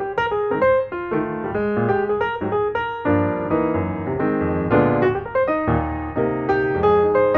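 Piano music: a steady stream of single notes and chords.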